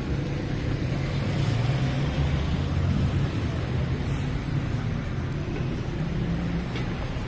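Steady rumble of street traffic: cars and other motor vehicles running along a city avenue.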